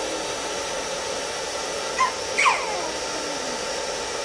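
Hand-held hair dryer running steadily on a low setting. About two and a half seconds in, a brief high-pitched squeal slides down in pitch over it.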